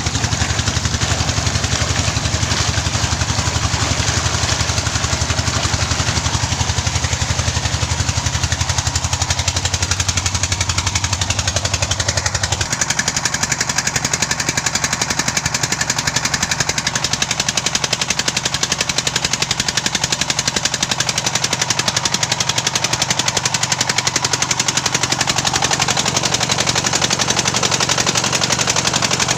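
The 'mesin 48' engine of a land tin-mining rig running steadily with a fast, even chugging beat. A lower drone underneath drops out about halfway through.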